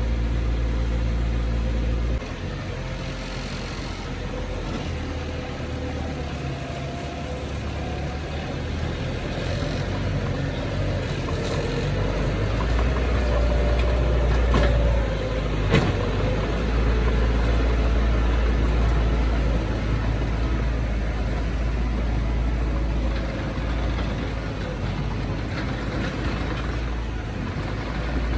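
Heavy diesel engine of earthmoving machinery running steadily, with the engine note shifting abruptly about two seconds in and a single sharp clank just past halfway.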